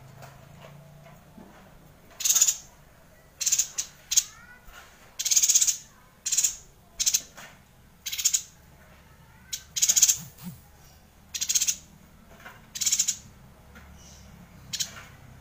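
Yuhina singing in a cage: about a dozen short, high-pitched trilled bursts, each well under a second, coming at irregular intervals of roughly a second.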